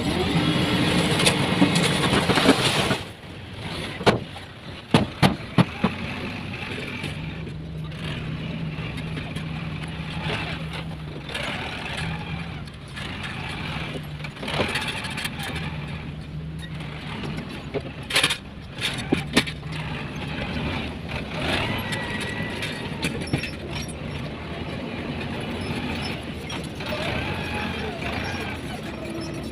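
Heavy diesel construction machinery running, with a steady low engine drone. A loud rushing hiss fills about the first three seconds, and sharp knocks come in two clusters, a few seconds in and again about two-thirds of the way through.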